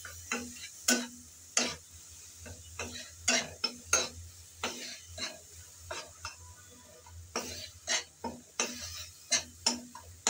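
Metal spatula scraping and tapping against a metal kadai as a thick onion and spice masala paste is stirred and fried with a little water. The strokes are irregular, about one or two a second, over a faint sizzle.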